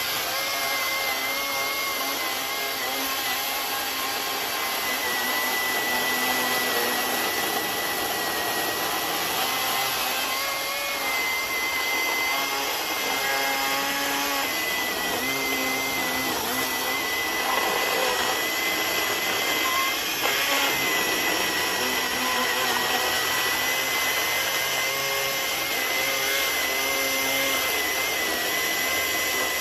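Milwaukee M18 FUEL cordless chainsaw's brushless motor running with a steady high whine as the chain cuts wood. The pitch dips slightly now and then as the cut loads it.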